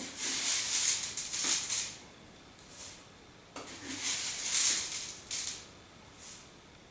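Dry rolled oats being scooped out of a cardboard canister with a measuring cup: two rustling, scraping scoops of about two seconds each, then a short pour of oats into a mixing bowl near the end.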